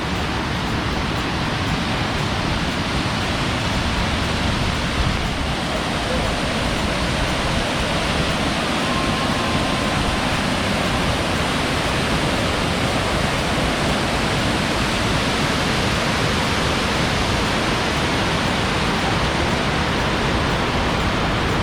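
Large waterfall rushing steadily: a dense, even noise of falling water that does not let up.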